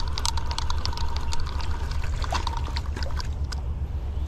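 Fishing reel being wound in: a rapid run of clicks that thins out about three and a half seconds in, over a steady low rumble.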